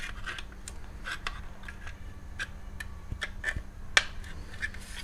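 Screwdriver working on a small screw in the metal housing of a motorcycle headlight, giving light, irregular clicks and ticks as the screw is undone.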